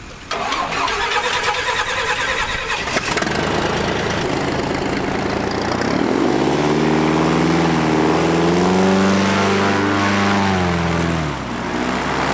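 Airboat engine and propeller running loudly; the engine note comes in suddenly just after the start, revs up about halfway through, holds high, and eases back down near the end.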